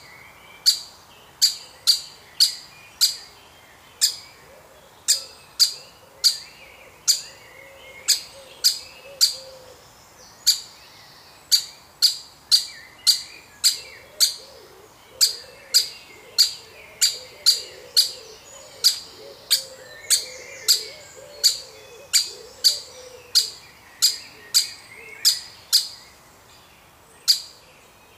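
Woodpeckers calling: a long run of short, sharp, high calls, roughly one or two a second with a few brief pauses, over a softer, wavering chatter.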